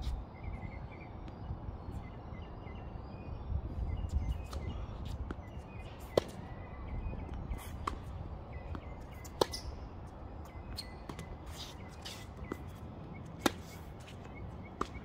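Tennis rally on a hard court: sharp pops of the ball off racket strings and bounces, a few seconds apart, over a low rumble.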